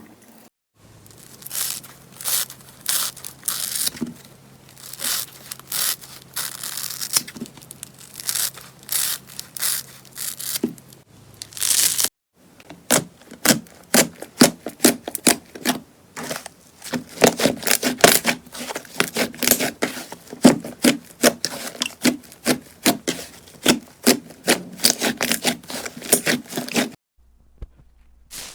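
Slime being handled by hand, giving rapid clicking and popping noises. They come in two runs: scattered clicks for about the first eleven seconds, then a denser run of clicks after a brief break.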